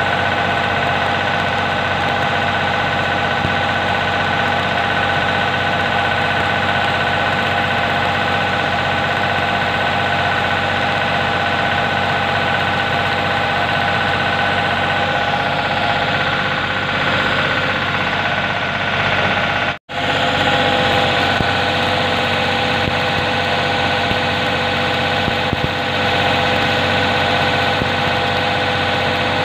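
Electric arc welding on steel plate: the arc's steady crackling sizzle over a constant hum, cutting out for a moment about twenty seconds in.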